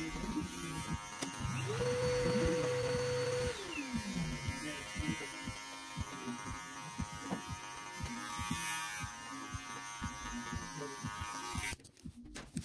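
Cordless electric hair clipper buzzing steadily while cutting a taper at the nape, with light ticks as the blade works through the hair. About two seconds in, a high whine rises, holds for about two seconds, and falls away; near the end the buzzing cuts off suddenly.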